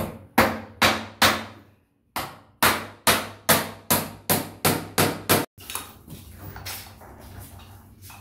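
Hammer driving nails into the wooden formwork boards of a concrete sink counter: four quick blows, a short pause, then about nine more at a steady two or three a second. The hammering stops about five and a half seconds in, leaving quieter scraping and handling of the boards.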